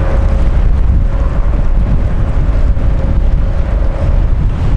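Wind buffeting the microphone, a heavy, steady, rough rumble, with a faint steady hum beneath it that fades out about four seconds in.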